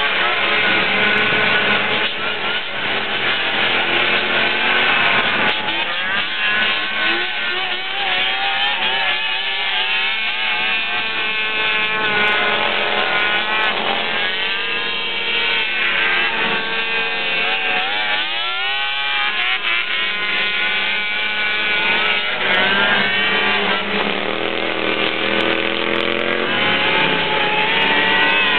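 Engines of several 6x6 six-wheel ATVs racing together, each rising and falling in pitch as it revs up and eases off, the notes overlapping.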